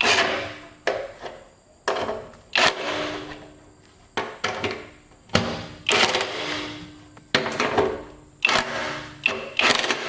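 Metal being struck repeatedly: about a dozen sharp blows at an uneven pace, each leaving a brief ringing tone.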